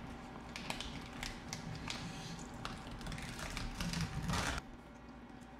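Gloved hands pulling apart crispy fried chicken and handling food on plates: scattered crackles and light taps, with a longer rustling crackle about four seconds in.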